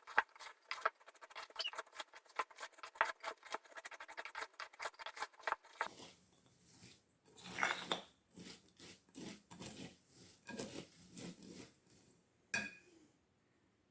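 Spoon stirring cornflakes coated in melted chocolate: a dense run of crisp crackling and scraping, changing to slower, softer stirring strokes about six seconds in. A sharp knock comes near the end.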